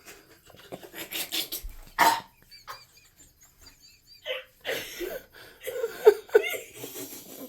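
A person's short non-speech vocal sounds, laughter and breathing, in irregular bursts with the loudest about two seconds in and again about six seconds in.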